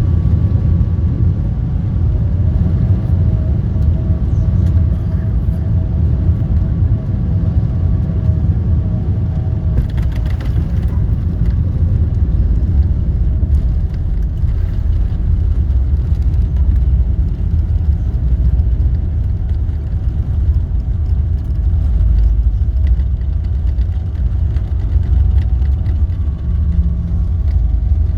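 Airbus A340 running with a steady low rumble and a faint, steady whine above it, heard from inside the aircraft. A short run of clicks or rattles comes about ten seconds in.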